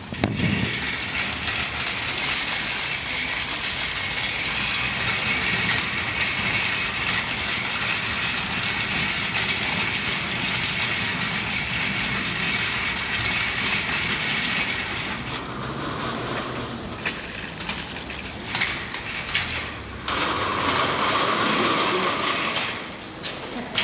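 Wire shopping trolley rattling steadily as it is pushed over paving; about fifteen seconds in the rattle drops to a lighter clatter with scattered clicks.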